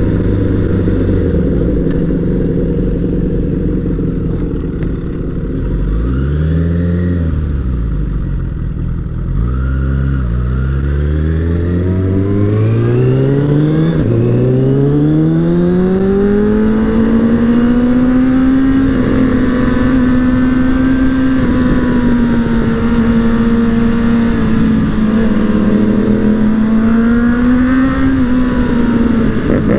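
Suzuki Bandit 600's inline-four engine heard from on the bike: running at low, steady revs with two brief dips, then revving up in one long climb from about eleven seconds in and holding high revs with small rises and falls. Wind noise rushes along underneath.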